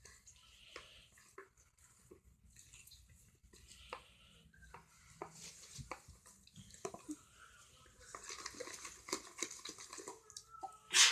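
A utensil stirring and scraping foamy slime (glue, shaving foam and borax water) around a bowl: irregular clicks against the bowl with wet, scrapy noise, busier over the last few seconds, and one sharp knock near the end.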